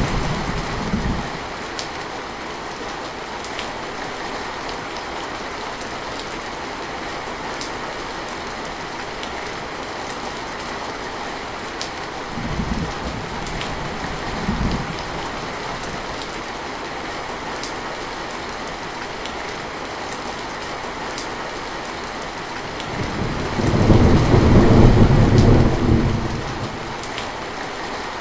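Heavy rain falling steadily, with thunder: a low rumble dies away in the first second, two short rumbles come about halfway through, and a louder rolling rumble lasts about three seconds near the end.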